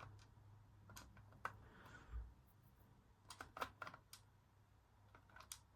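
Faint, scattered clicks and taps of small metal lock pins and springs being set down and arranged on a surface, with a short cluster of clicks about three and a half seconds in.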